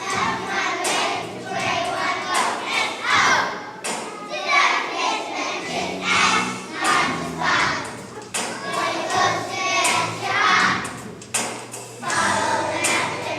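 Kindergarten children's choir singing a song together over instrumental accompaniment, with occasional thumps.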